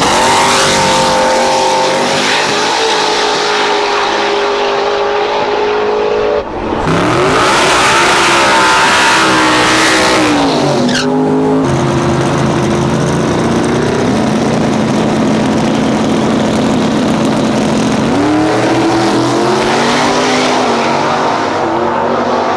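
Race-car engines running loud, holding steady pitches, with abrupt breaks about six and a half and eleven seconds in. Between about seven and ten seconds one engine climbs in pitch as it accelerates.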